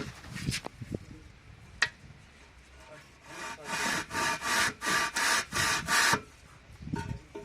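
A hand tool scraping along the mortar joints of brickwork in quick back-and-forth strokes, about seven strokes over three seconds, with a few sharp clicks before them: the joints being raked out to give the plaster a key.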